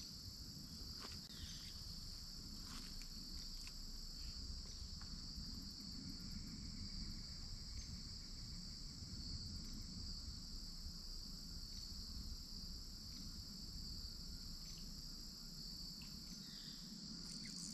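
Steady, high-pitched chorus of crickets or similar insects over a faint low rush, with a few light clicks.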